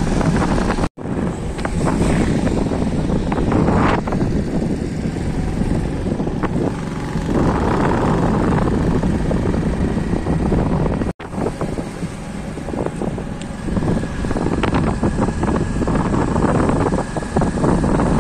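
Motorcycle engine running on the move, heavily mixed with wind buffeting the microphone. The sound drops out for an instant twice.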